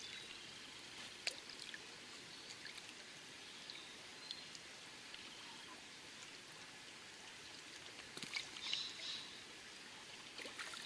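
Shallow river running over stones, a steady faint rush of water, with a sharp click about a second in and a brief louder rustle around eight seconds in.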